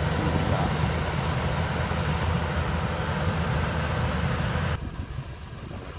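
Yanmar AW82V combine harvester's diesel engine and threshing machinery running steadily while harvesting rice. About 4.8 seconds in, the sound drops abruptly to a quieter, duller level.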